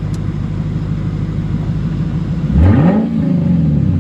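Lexus RC F's 5.0-litre V8, fitted with an aFe Takeda aftermarket intake, idling on its first start after the install, then revved once about two and a half seconds in, the pitch rising quickly and falling back to idle.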